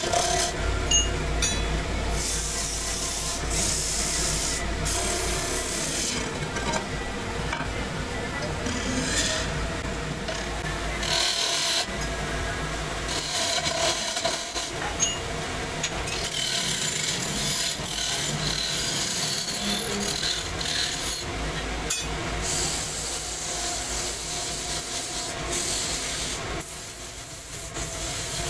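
Belt-driven wood lathe turning a wooden disc while a hand-held hooked cutting tool scrapes into the spinning wood, a rasping scrape that swells and eases in strokes over the lathe's steady low hum.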